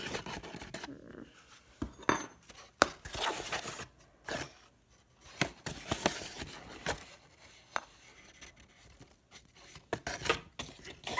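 Kitchen utensils clicking and scraping at irregular intervals: a measuring cup and spoon handling flour in a mixing bowl.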